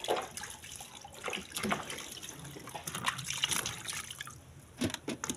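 Water sloshing and splashing in a plastic bucket as cocoyam corms are scrubbed by hand, with irregular small splashes and drips.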